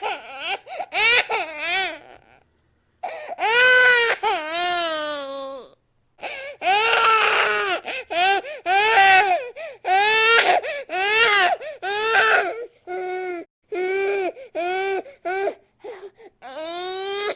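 Infant crying hard: a string of loud, pitched wails that bend up and down, broken by short gasps for breath, with a couple of brief pauses early on and rapid shorter cries toward the end.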